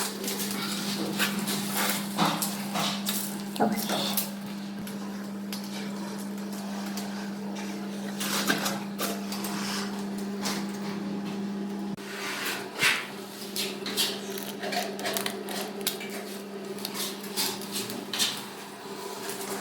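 Irregular knocks, taps and clatter of hand work on building materials, over a steady low hum.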